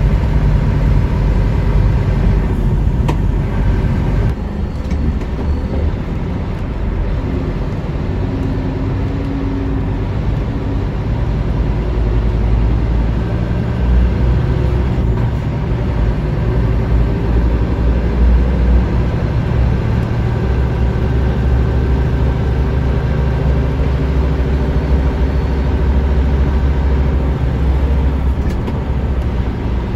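Steady low rumble of a vehicle driving, heard from inside its cabin.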